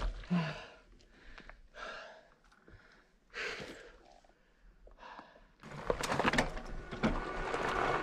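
A man's heavy breathing: a few short, breathy exhales about a second and a half apart, the first with a low grunt, after hauling a loaded bikepacking bike. From a little past halfway a steadier rushing noise comes up.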